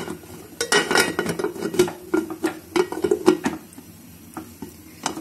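Aluminium pressure cooker lid being fitted and twisted shut: a run of metal clinks and scrapes, the loudest knock about three seconds in, then quieter.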